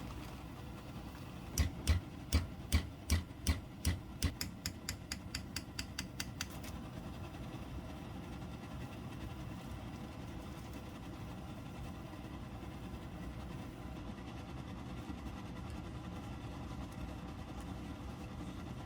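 Steady low rumble of a vehicle in motion, with a run of sharp knocks about a second and a half in that come quicker and quicker and fade out over about five seconds.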